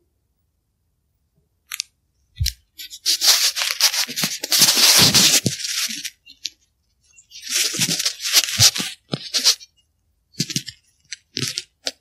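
Short, sharp clicks and two longer stretches of dense crunching, rustling noise, each broken off by moments of dead silence. A cluster of quick clicks comes near the end.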